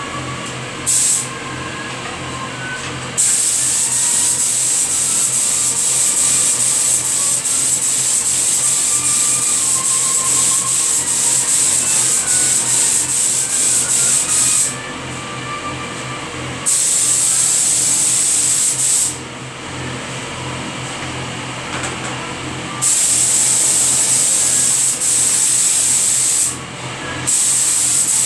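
Compressed-air gravity-feed spray gun hissing in long bursts as its trigger is held and released, with short pauses between passes; a steady low hum underneath.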